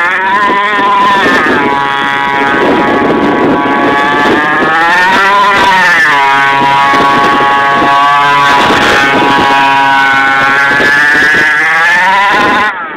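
The 29cc two-stroke engine of a 1/5-scale RC gas baja buggy running hard, its pitch rising and falling several times as the throttle is opened and closed while it drives.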